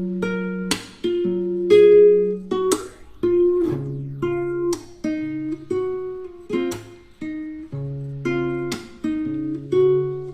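Background music: a plucked acoustic guitar picking out a melody note by note, each note struck sharply and left to ring, over lower bass notes.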